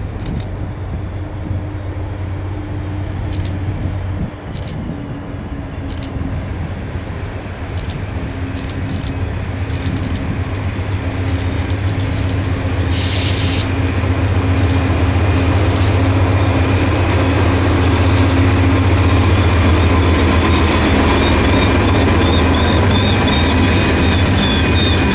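Two GE C40-8 diesel-electric locomotives approaching and passing under load, their V16 engines making a steady low drone that grows louder as they near. A brief hiss comes about halfway through, and a wavering high squeal rises in the last third as the locomotives and the first freight cars roll by.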